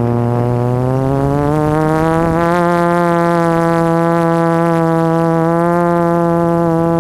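Electric motors and propellers of a small radio-controlled FPV aircraft, a loud steady buzzing whine. It climbs in pitch over the first two or three seconds as the throttle comes up, then holds.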